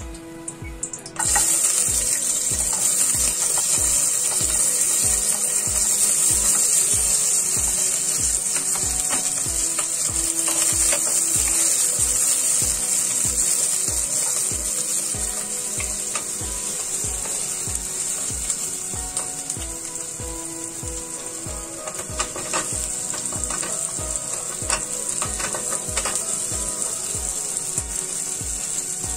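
Chopped onion dropped into hot oil in an aluminium pot, starting a loud sizzle about a second in that keeps going while a wooden spatula stirs. A few knocks and scrapes of the spatula and vegetables against the pot come later.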